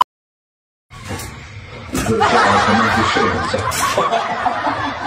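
Many people laughing together, starting after about a second of dead silence and swelling to full strength about two seconds in, with a few sharp clicks over it.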